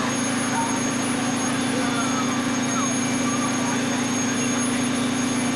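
Steady drone of a fire engine running at pump pressure to supply the hose streams, with faint distant voices.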